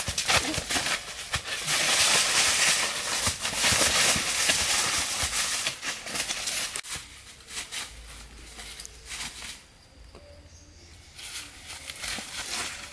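Dry fallen leaves crackling and rustling under bare feet and a prodding stick. Loud and busy for the first six seconds, much quieter after that, and picking up again near the end.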